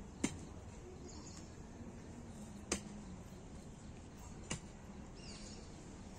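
Quiet garden ambience with three short, sharp clicks about two seconds apart. A brief falling bird chirp comes near the end.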